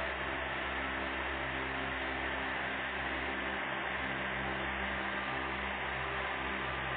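Steady background hiss with a low, even hum and no distinct events: room tone or recording noise.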